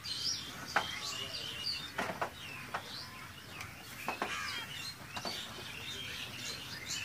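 Small birds chirping: a stream of short, high chirps with several sharper single calls among them.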